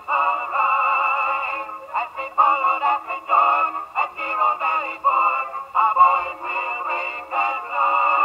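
A sung 78 rpm Victor record playing through a 1921 wind-up Victor Victrola acoustic phonograph. The song comes out thin and boxy, with no deep bass and no crisp treble.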